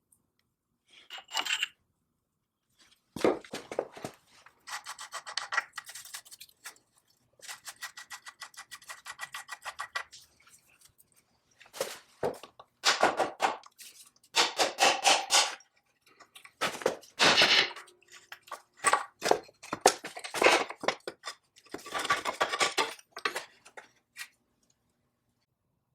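Rapid back-and-forth rubbing strokes on a hard surface, in bursts of one to two seconds separated by short pauses.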